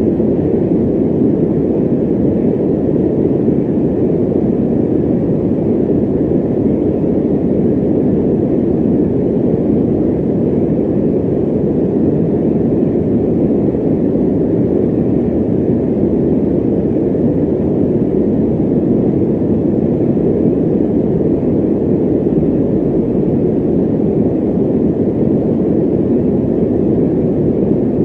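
Fan running: a steady, unchanging whoosh, deep and muffled, with little high hiss.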